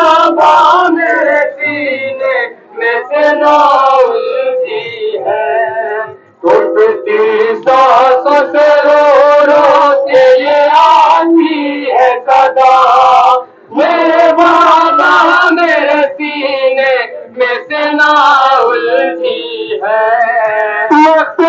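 Men's voices singing a noha, a Shia Muharram mourning lament, line after line with short breaths between phrases.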